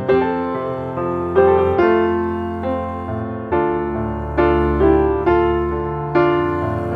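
Slow piano music: notes and chords struck every second or so, each ringing out and fading before the next.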